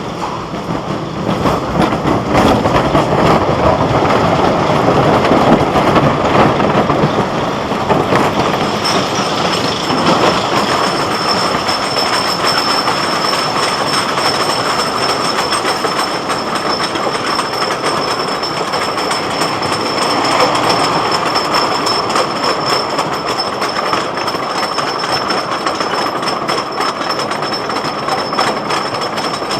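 Wooden roller coaster train running on its track, heard from on board: a steady rumble and clatter of wheels on wood, with a thin high whine joining in about nine seconds in.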